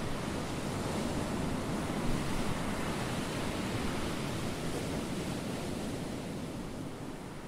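Steady wash of ocean surf, growing slightly quieter near the end.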